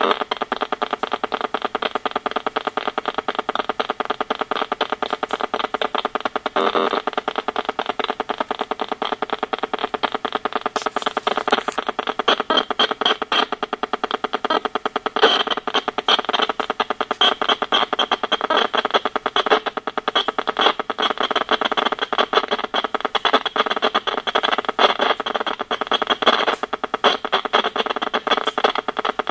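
RF meter's audio output buzzing and crackling with demodulated WiFi signals from an iPad and a wireless router: a dense, rapid, unbroken stream of clicks.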